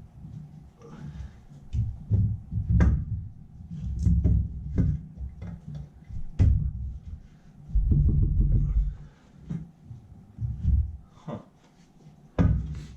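Irregular knocks, clunks and low thumps from a metal intake manifold being shifted and worked against the small-block Ford's cylinder heads while it hangs up on the lip of the head.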